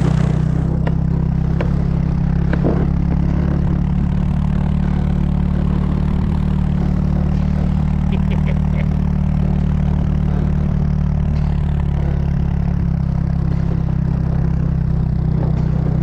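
A vehicle engine running at a steady speed, with a few light clicks in the first three seconds.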